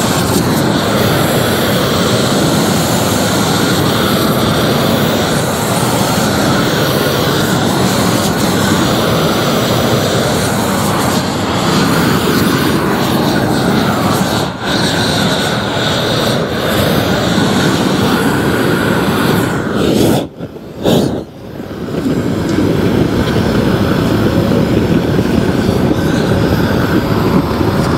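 Propane roofing torch burning with a loud, steady rushing noise as its flame melts the underside of a torch-down roofing membrane roll to fuse it to the roof. The sound dips briefly about halfway through, then drops off more deeply for about a second around twenty seconds in before resuming.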